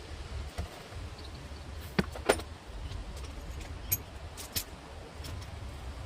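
Sharp metallic clicks and clinks, two loud ones about two seconds in and a few lighter ones a couple of seconds later, over a low steady rumble.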